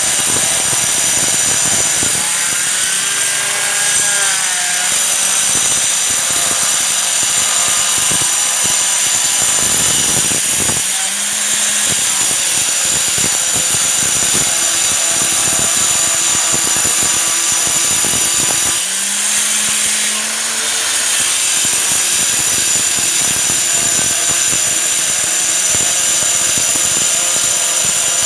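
Stone cutting machine running and cutting stone: a loud, continuous high whine over rough grinding.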